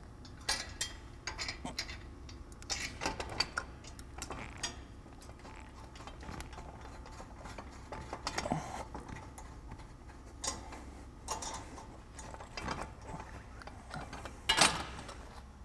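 Irregular metal clicks and rattles as a manual crank jack is wound down and its holding pin worked loose, with a louder clatter near the end.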